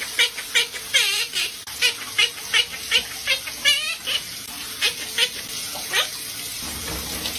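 Pet parrot giving a rapid series of short, high chirping calls, about two to three a second, that stop about six seconds in, over a steady hiss like running water.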